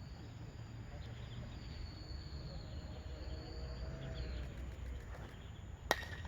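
Outdoor ballfield ambience: a steady low rumble with a faint high, even whine and distant voices. Near the end there is one sharp crack of a baseball impact.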